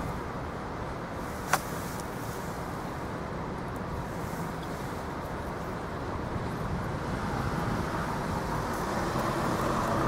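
Steady rushing of wind on the microphone, growing a little louder in the second half, with a single sharp click about one and a half seconds in.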